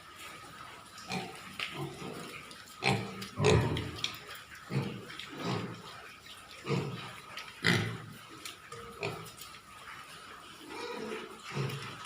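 Pigs grunting in a pen, short low grunts about one a second, with a few louder ones around the middle.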